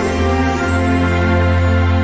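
Background Christmas music: slow, sustained notes over a steady low bass note.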